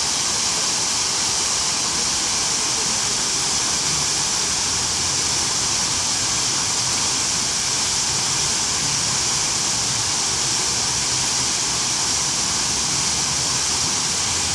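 Water from a tiered fountain's central jet and arching side jets splashing down into its basin: a steady, even hiss-like rush.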